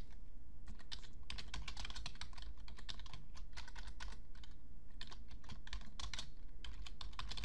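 Typing on a computer keyboard: a run of irregular keystroke clicks with short pauses between bursts, over a steady low hum.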